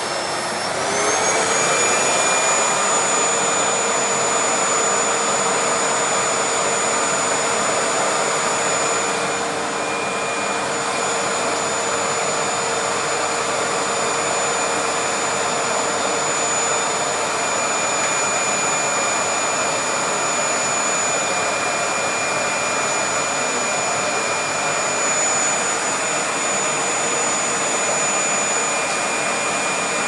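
Vacuum cleaner running steadily; about a second in its motor whine rises in pitch and grows louder, then holds at the higher speed.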